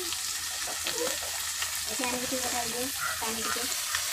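Turmeric-coated fish pieces sizzling steadily as they fry in hot oil in a small wok, stirred with a spatula.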